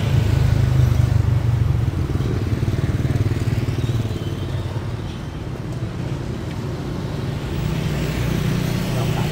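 Motorbike traffic passing on the street, small engines running. It is loudest for the first few seconds, eases off in the middle and builds again near the end.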